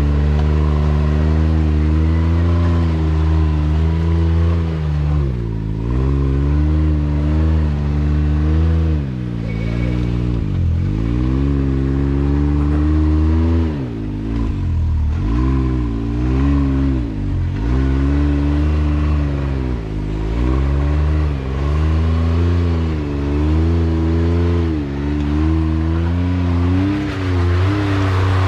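Side-by-side UTV engine working over a rock obstacle, the throttle blipped again and again so the revs rise and fall every second or two, with a few brief drops off the throttle.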